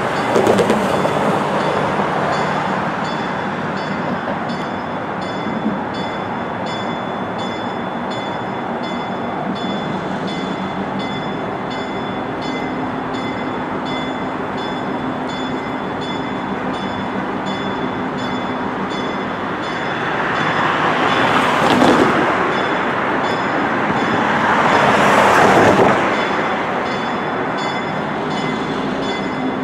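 Train locomotive running as it approaches, a steady rumble and hum, with a fast, even high ticking throughout. Near the end, two louder swells of rushing noise rise and fade, one after the other.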